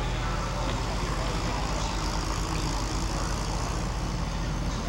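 Steady outdoor background noise with a constant low hum and faint voices.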